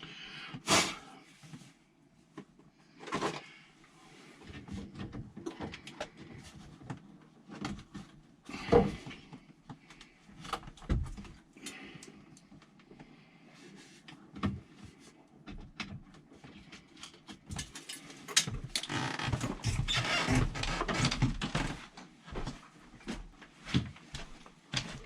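Hand work on old electrical wiring: scattered clicks, knocks and rustling as wires, tape and tools are handled, with a longer spell of steady rustling near the end.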